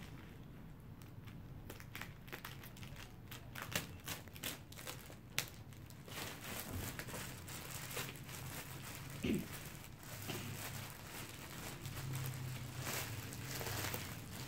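Clear plastic parcel wrap crinkling and crackling as it is cut with scissors and pulled open: scattered sharp crackles at first, denser crinkling from about six seconds in.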